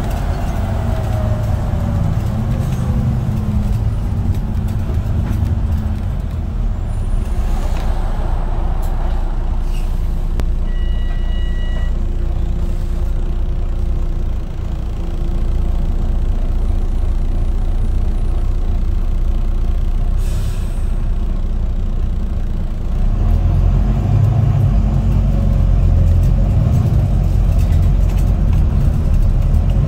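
Diesel engine of a Wright Gemini 2 double-decker bus heard from inside the passenger saloon. A falling transmission whine fades as the bus slows, then the engine runs quieter for a while with a couple of short air hisses from the brakes. About twenty-three seconds in, the engine note rises and grows louder as the bus pulls away.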